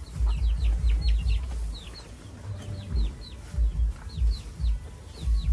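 Cattle munching fresh-cut grass close by, a run of low crunching thuds about four a second with a short lull midway. Chicks cheep in the background, short high calls that drop in pitch.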